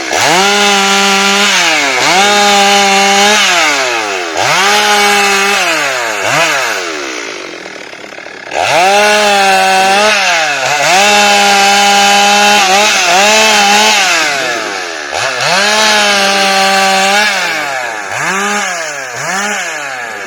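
Chainsaw engine revved again and again while cutting rubber tree wood: each time it climbs to a steady high-pitched full throttle for a second or two, then drops back toward idle. It sits lower and quieter for a couple of seconds around the middle before revving up hard again.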